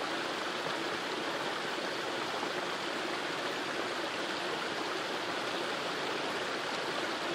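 Running water rushing steadily, a constant even wash with no breaks.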